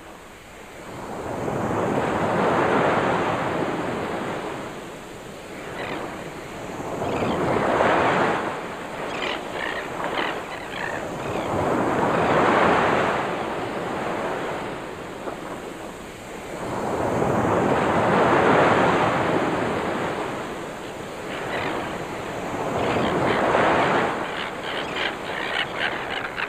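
Waves breaking and washing ashore, swelling and falling back in slow surges about every five seconds.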